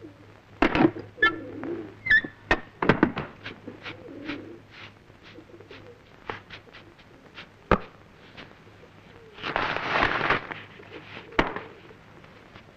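Pigeons cooing softly, with a scatter of light ticks and clicks. About ten seconds in, a short hand broom swishes across the floor.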